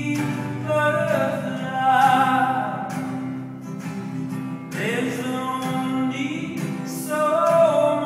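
A man singing a song live while strumming an acoustic guitar.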